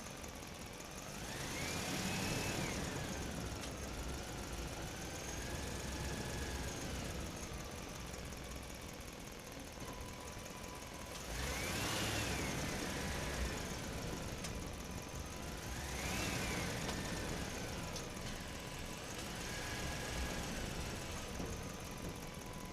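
Vehicle engine sound effects running steadily, revving up and back down four times, with a thin steady whine joining about halfway through.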